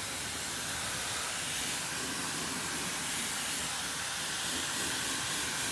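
Blow dryer running steadily, its air stream blowing through a Samoyed's thick double coat to dry it after a bath.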